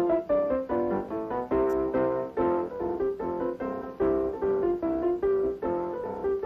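Piano music: a steady run of separate notes, about three a second.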